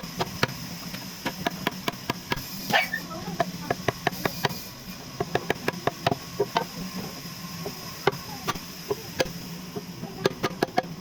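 Rapid, irregular sharp knocks and taps of hand tools working on wood, a few a second with brief pauses, over a steady low hum.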